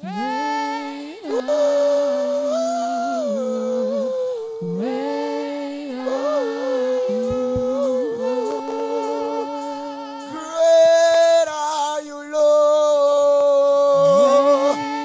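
A solo voice sings a slow, wordless worship melody in long held notes, with no clear words.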